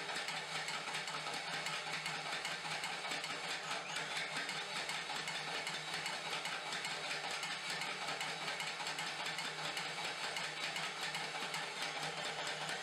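Homemade Hardy Hammer power hammer pounding a white-hot railroad spike in a rapid, even run of blows, drawing the steel out.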